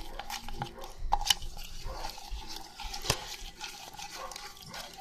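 Slime mixture being stirred in a cup, soft wet squelching with a few sharp clicks of the stirring utensil against the cup.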